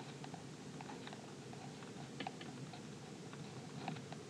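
Faint scratching and ticking of a pen writing numbers on paper, in short irregular strokes.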